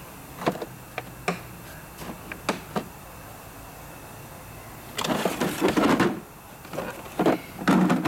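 Plastic tool cases and metal fittings handled in a tool box drawer: scattered light clicks and knocks, then about a second of dense clattering about five seconds in, and a few more knocks near the end.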